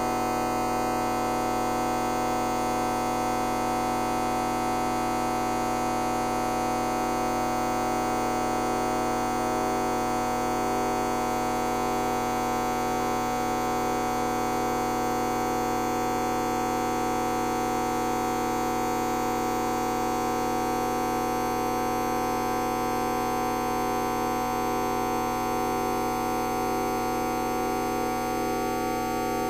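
A fart sound effect time-stretched to an hour, heard as a steady drone of many held tones with no breaks or rhythm.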